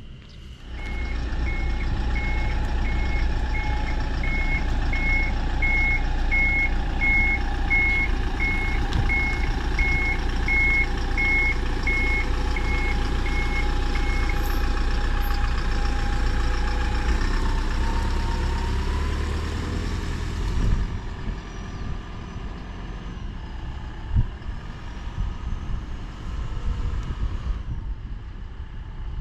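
Camper van engine running while its reversing beeper sounds about one and a half times a second for the first fourteen seconds or so as the van backs up. A rising whine follows as it pulls away, and the sound turns quieter about two-thirds of the way through.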